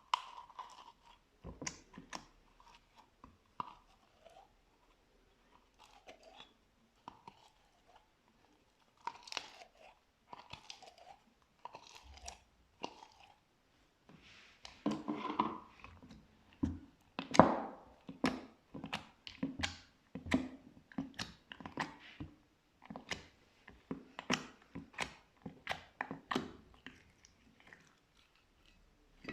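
Slime being squeezed and pressed by hand, giving a run of irregular short sticky clicks and pops that grow denser and louder about halfway through.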